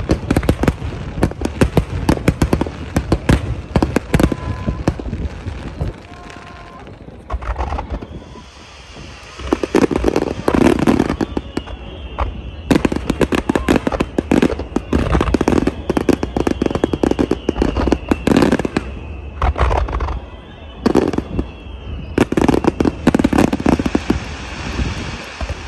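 Aerial firework shells bursting in rapid barrages of bangs and crackles, with a quieter lull about six seconds in before the volleys start again.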